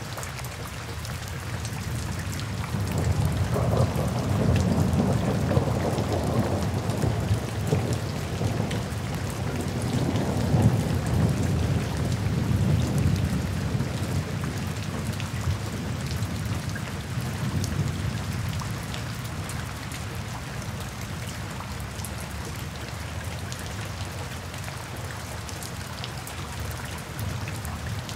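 Steady rain falling in woodland, full of small drop ticks. A few seconds in, a long low rumble of thunder swells up, peaks about ten seconds in, and slowly fades away.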